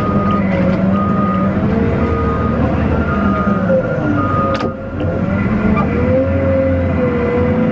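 Cat 950M wheel loader's diesel engine running, heard from inside the cab, with a reverse alarm beeping about once a second. The beeping stops about four and a half seconds in, at a sharp click, and the engine note rises soon after.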